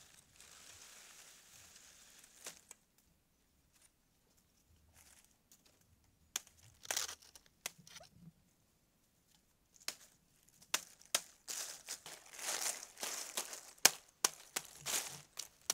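Stiff palm fronds rustling and crackling as they are dragged and handled, then a run of sharp, irregular chops from a machete cutting through the frond stalks in the second half, the loudest strike near the end.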